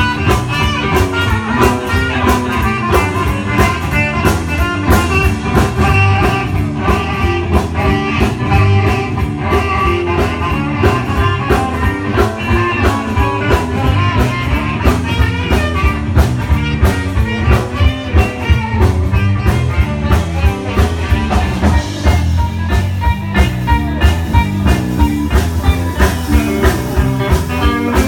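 Live swing and soul band playing an upbeat number with electric guitar over a steady dance beat, which becomes more pronounced in the last few seconds.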